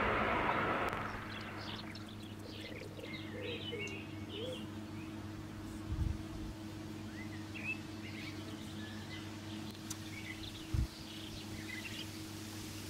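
The noise of a DSB IC3/IR4 passenger train that has just passed at speed fades away over the first two seconds. After that, small birds chirp over a steady low hum, with two dull low bumps, one about six seconds in and one near eleven seconds.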